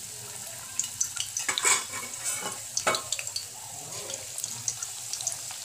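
Spinach-and-potato pakora batter dropped by hand into hot oil in a kadhai, sizzling steadily with scattered crackles as the pieces fry.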